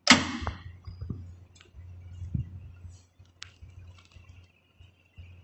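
A sharp click as the Scan button on the X-ray apparatus control panel is pressed, the loudest sound, followed by a few faint scattered clicks over a low steady hum from the apparatus.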